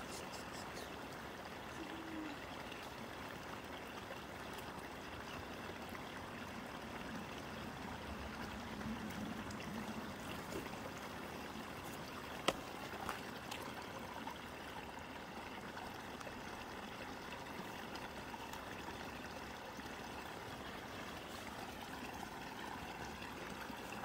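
Shallow mountain stream trickling steadily over rocks. A single sharp click cuts in about halfway through.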